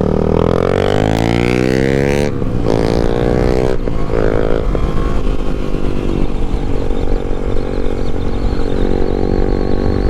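Yamaha MT-07's 689 cc parallel-twin engine accelerating, its pitch climbing and then dropping at upshifts about two and four seconds in, then settling to a steady cruise, with wind rumble underneath.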